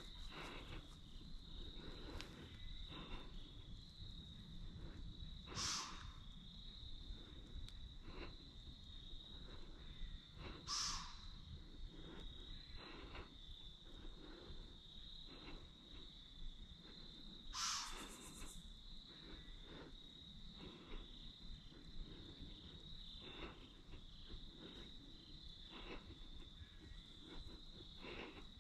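Insects chirping outdoors in a steady high-pitched trill, with faint scattered clicks. Three brief, louder scratchy sounds come at intervals.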